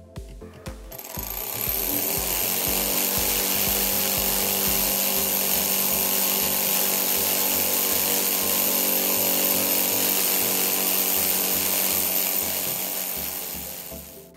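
Alpha-type Stirling engine of a miniature tank running fast and superheated, at about 2,900 rpm: a steady mechanical whir with a high hiss. It fades in about a second in and fades out near the end, over background music with a repeating bass line.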